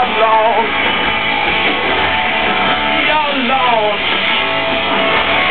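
Live rock band playing loud, electric guitar to the fore, with vocals sliding over it, heard from the crowd.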